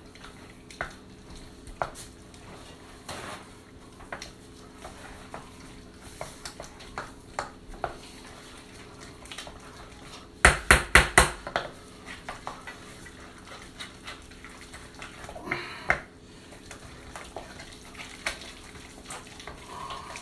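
Wooden spoon beating stiff choux dough in a stainless steel saucepan by hand, scraping and knocking against the pan in scattered strokes, with a quick run of several loud knocks about ten seconds in. The dough is at the stiff last-egg stage, where the egg is hard to work in.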